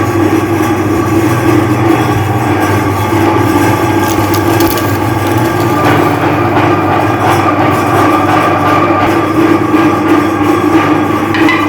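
Meat grinder running steadily as it grinds hard lollipops, a constant motor hum under a dense crunching, crackling noise.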